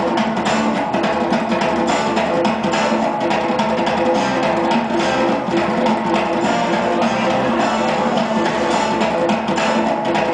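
Georgian folk dance music with a steady drum beat and plucked strings, played loud and continuous.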